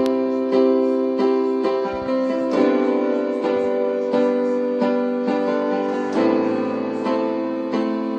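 Piano music: sustained chords re-struck in a steady pulse, about two a second.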